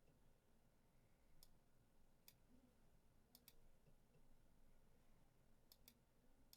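Faint computer mouse clicks, about seven in all, some in quick pairs, against near silence.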